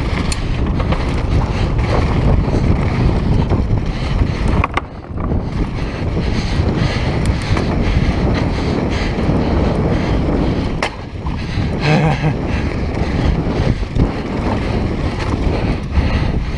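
Wind buffeting a GoPro on a mountain bike descending a downhill trail, mixed with tyres on dirt and the bike rattling and clattering. The rush drops briefly about five and eleven seconds in.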